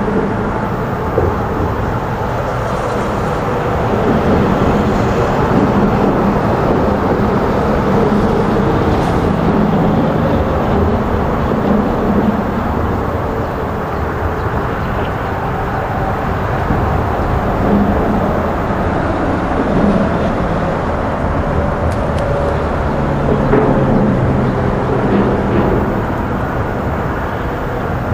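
Loud, steady low rumbling outdoor noise that slowly swells and eases, with a faint low hum in it.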